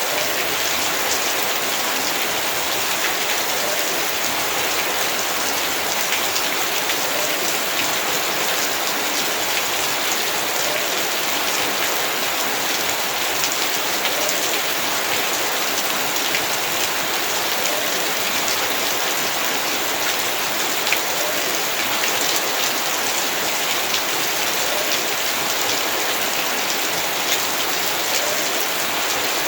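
Heavy rain falling steadily, a dense, even hiss with many individual drops pattering on surfaces.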